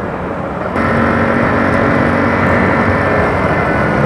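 Honda CG 125 Fan's air-cooled single-cylinder four-stroke engine running as the motorcycle rides in traffic, with wind and road noise. About a second in, the engine note gets louder and holds steady as the bike pulls harder.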